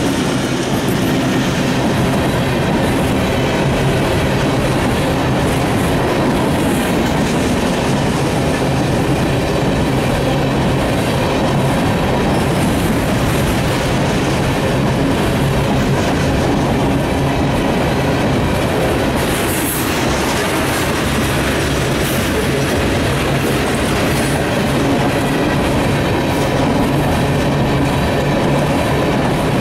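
A Union Pacific freight train's covered hoppers and tank cars rolling past at close range, a loud, steady wheel-and-rail noise.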